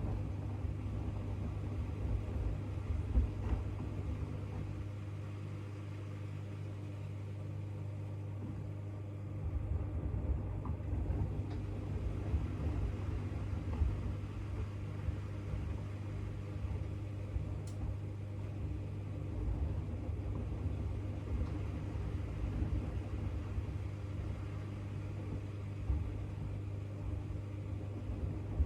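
AEG 8000 Series LR8FL160EX front-loading washing machine running a wash with a load of bath mats: a steady motor hum under the rumble of the tumbling drum. The tumbling stops for a few seconds about four seconds in, then starts again.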